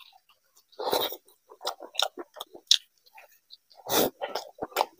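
Close-miked chewing and wet mouth sounds of a man eating curried chicken leg and khichdi by hand, irregular and crackly. Two louder bursts come about a second in and again near four seconds.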